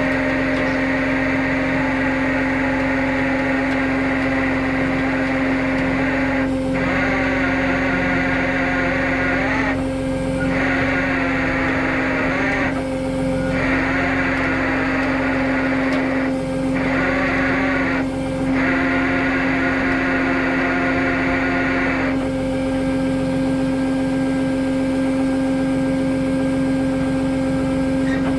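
Truck engine running with a steady, unchanging hum under a rushing noise that briefly drops away about five times.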